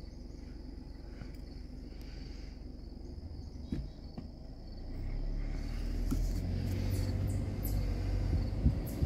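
Car running with low engine and road rumble that grows louder about halfway through, over a steady high insect drone; two light clicks come just before the rise.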